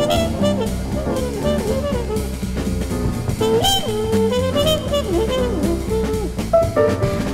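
Small-group swing jazz played from a vinyl LP: a trumpet line that bends and slides in pitch over walking double bass, piano and a drum kit with cymbals. A louder drum accent comes near the end.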